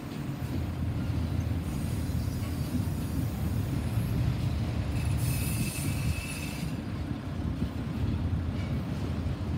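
Freight train autorack cars rolling past, their wheels on the rails making a steady low rumble. About five seconds in, a thin high wheel squeal with a hiss rises for a second or so and then fades.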